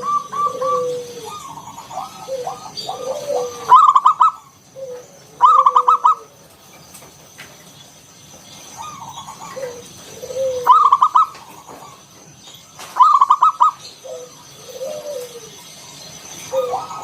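Zebra dove (perkutut) singing its cooing song: phrases repeated every few seconds, each opening with lower coos and running into a quick string of higher, rolling notes.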